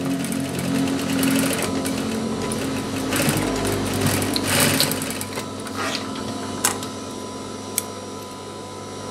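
Industrial sewing machine stitching a folded fabric edge for about the first five seconds, then the needle stops while the motor hums on. A few sharp clicks follow near the end as the threads are snipped with scissors.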